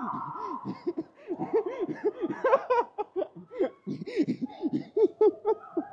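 Hearty laughter: short ha-ha pulses in quick succession, going on and off.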